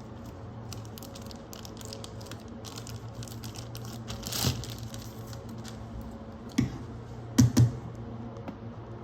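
Small clicks and taps of hands handling a toy and its packaging, with a short rustle about four seconds in and a few louder knocks near the end, over a steady low hum.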